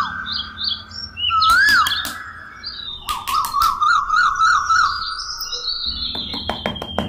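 Whistle-like chirping sound effects: two rising-and-falling whistle glides, then a fast warbling whistle, with higher chirps and a few clicks. Near the end, a run of rapid clicks begins as music comes in.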